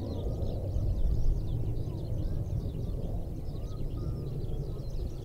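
Many small birds chirping and twittering continuously over a steady low outdoor rumble.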